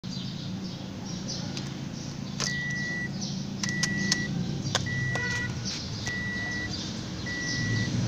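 Toyota Corolla's key clicking into the ignition lock, then the car's warning chime sounding five short, even, high beeps about a second apart, the reminder that the key is in the ignition. A steady low hum runs underneath.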